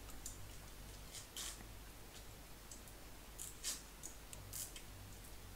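Faint, scattered light clicks and ticks of small repair tools being handled during fine soldering work, over a low steady hum.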